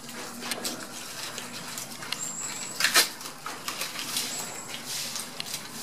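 Piglets and their sow feeding on banana leaves: irregular crackling and rustling of leaves as they chew and root, with a sharper click about three seconds in. A brief thin high whistle sounds twice.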